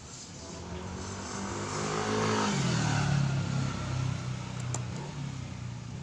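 Engine of a passing motor vehicle. It grows louder, then fades, and its pitch drops as it goes by.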